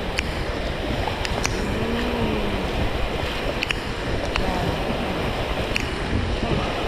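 Whitewater river rapids rushing steadily around a raft, with wind buffeting the microphone and scattered sharp ticks.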